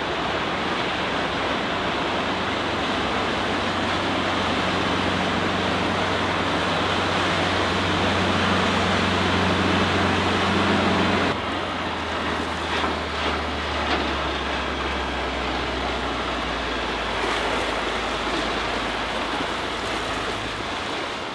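Wind noise on the microphone over the steady low drone of a sports cruiser's Yanmar 240 hp turbo diesel stern drive running at speed on the water. About eleven seconds in the sound changes abruptly and the drone drops lower, then fades.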